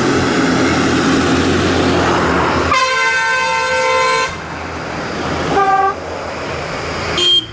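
A truck's engine and tyres as it drives past. About three seconds in, a vehicle horn sounds for about a second and a half, followed by two short, lower-pitched honks near the end as more vehicles come by.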